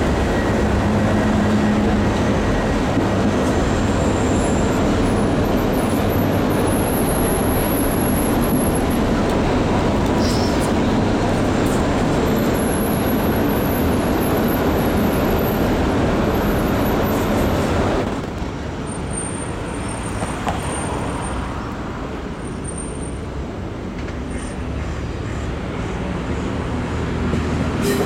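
DSB IC3 diesel multiple unit moving past at low speed, a steady drone of its engines mixed with wheel and rail noise. About two-thirds of the way through the sound drops to a quieter, more distant train rumble that builds again near the end.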